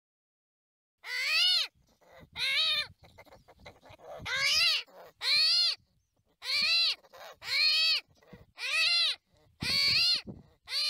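Eight high, whining animal calls, each about half a second long and rising then falling in pitch, coming roughly one a second after a second of silence.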